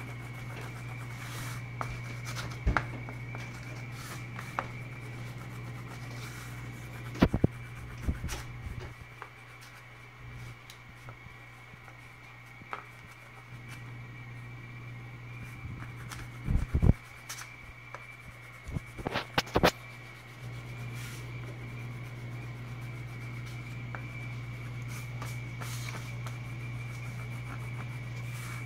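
Pentel oil pastel stick scribbling and rubbing on paper over cardboard, a soft continuous scratching as colour is laid in. A few sharp knocks stand out, in clusters about a quarter, just past half and two-thirds of the way through, over a steady low hum and a thin high whine in the background.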